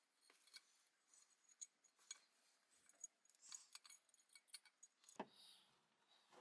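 Faint clicks and light metallic clinks as a drill's field coil and metal motor housing are handled and fitted together, with one sharper knock about five seconds in.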